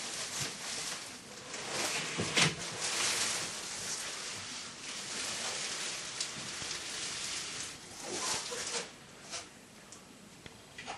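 Plastic packaging bag and wrap rustling and crinkling as a heavy wrapped 3D printer is lifted out of its box and set down, with one sharp, loud crack about two seconds in. The rustling dies down near the end.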